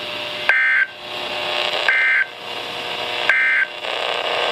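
Three short bursts of EAS/SAME digital data tones, about 1.4 seconds apart, over steady radio hiss. This is the end-of-message code closing a NOAA Weather Radio flash flood warning broadcast.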